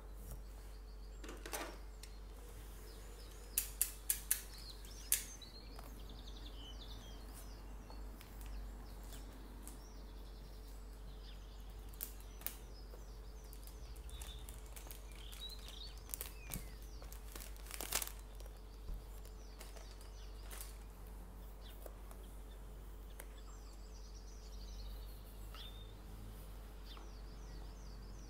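Faint crinkling and a few sharp clicks from a cellophane-wrapped perfume box being turned over in gloved hands, over a steady low hum. Birds chirp now and then in the background.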